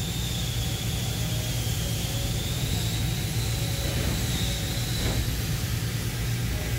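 Industrial fiber laser cutting machine running between cuts, a steady low hum and drone while it calibrates its cutting head and measures the sheet. A faint high whine wavers slowly in pitch, and there is a soft click about five seconds in.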